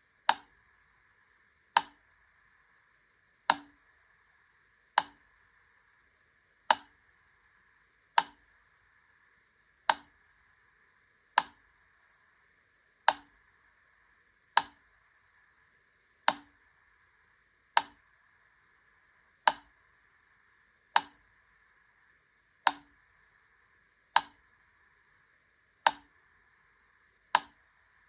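Wittner Taktell Piccolo clockwork metronome ticking at a very slow tempo, about one sharp tick every one and a half seconds, with a faint steady hiss between the ticks.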